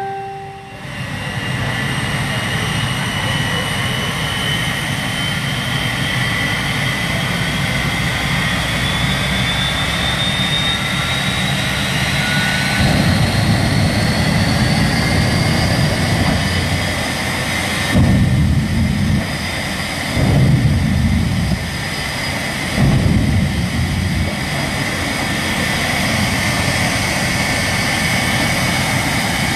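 Jet engine of the Fire Chief jet monster fire truck running with a steady turbine whine that rises in pitch over the first dozen seconds and then holds. About halfway through come four deep, louder surges of blast as it throws flame over a car.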